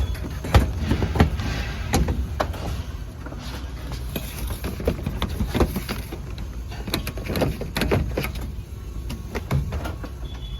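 Irregular knocks and clatter, often several in quick succession, over a steady low hum.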